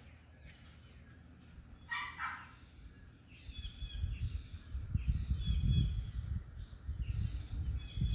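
A dog barks once about two seconds in. Then there are several short, high bird chirps over a low rumbling noise that grows louder from about four seconds in.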